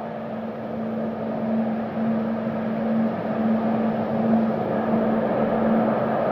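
Steady engine-like mechanical drone with a constant low hum, growing somewhat louder about halfway through.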